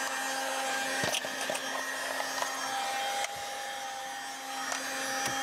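12V car tyre-pump air compressor running with a steady electric-motor whine, with two sharp clicks about a second in and again around three seconds. The pump is broken: it runs and makes its noise, but no air comes out of the nozzle.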